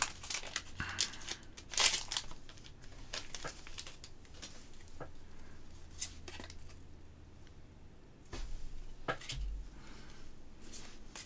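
Foil Pokémon card booster pack being torn open and handled: scattered crinkling, tearing and rustling, with short clicks of cards being shuffled.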